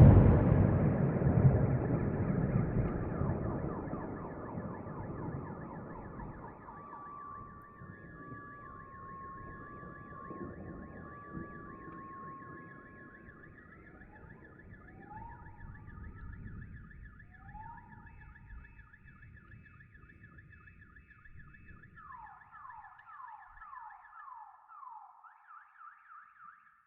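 Thunder rumbling away after a clap, dying off over about twenty seconds, while several car alarms go off together: pulsing steady tones join from about seven seconds in, falling sweeps come in later, and near the end a run of quick falling whoops sounds once the thunder is gone.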